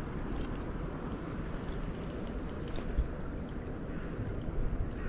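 Sea water washing and lapping, a steady rushing noise, with a few faint high clicks through the middle.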